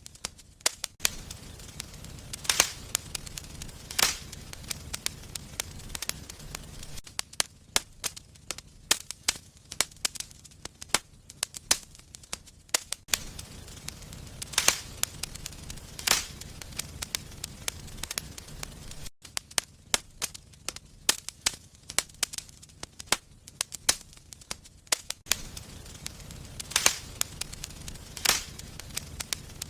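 Wood fire in a fireplace crackling, with irregular sharp pops several times a second and a few louder snaps standing out. Underneath is a low rumble that drops out and returns abruptly a few times.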